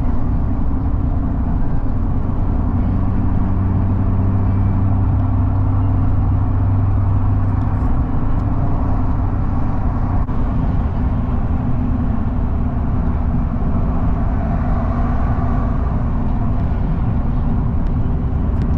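A car driving along the road, heard from inside the cabin: a steady low rumble of road and engine noise. A low drone in it fades out about eight seconds in.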